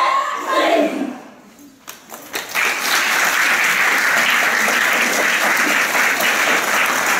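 Loud group voices break off in the first second; after a brief hush, a large audience of students starts clapping about two and a half seconds in and keeps up steady applause.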